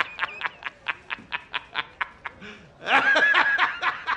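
A man laughing hard in rapid, even 'ha-ha-ha' pulses, about six or seven a second, that swell into a louder, higher burst of laughter about three seconds in.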